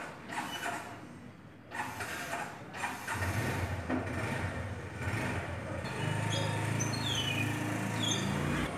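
An engine running, coming in about three seconds in and holding a steady low hum until it cuts off suddenly near the end.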